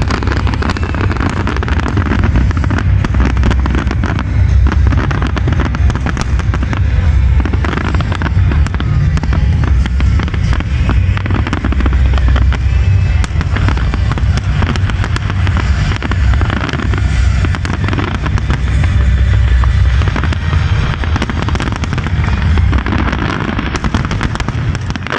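Fireworks display: many shells bursting in quick succession, a dense continuous crackle over a steady low booming rumble.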